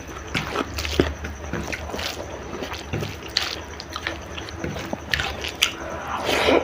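Close-miked eating sounds: a person chewing spicy chicken curry with rice, with irregular smacks and clicks.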